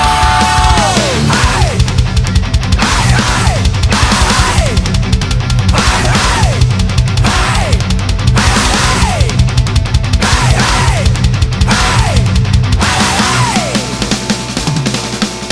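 Loud, heavy rock music in a post-hardcore/metal style with a dense, driving rhythm. A falling pitch glide repeats roughly once a second, and the bottom end drops away briefly near the end.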